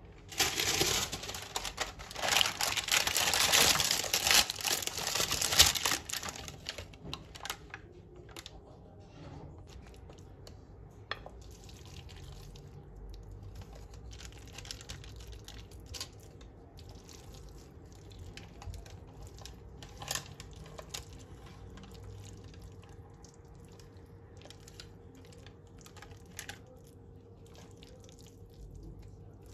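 Baking paper rustling and crumpling for about six seconds as it is pressed into a glass baking dish. Then quieter, scattered soft taps and scrapes as leek filling is spooned from a glass bowl into the paper-lined dish.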